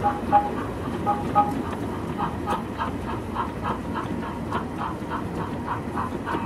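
O scale model freight wagons rolling past on the track: a steady rumble with wheels clicking over rail joints about three times a second. A few short, high two-note chirps stand out in the first second and a half.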